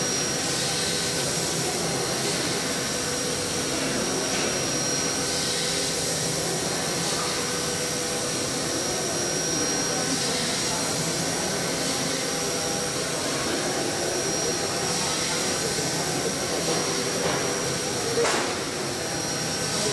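CNC gantry machining center milling an aluminium mould cavity: a steady high whine over a continuous hissing rush of spindle, cutter and chips. A brief louder burst about eighteen seconds in.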